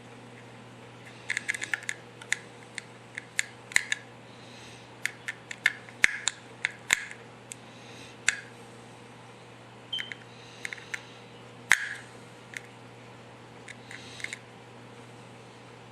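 Irregular small, sharp clicks and taps of a screwdriver and tiny metal screws as the screws are worked out of an iPhone 5's motherboard and set down, some in quick clusters, over a steady low hum.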